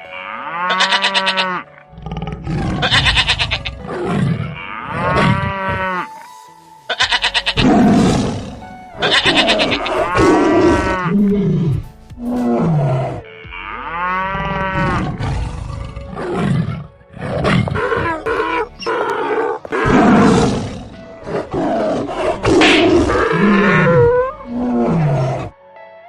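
A string of loud animal roars and growls, one after another, each lasting a second or two, with music underneath.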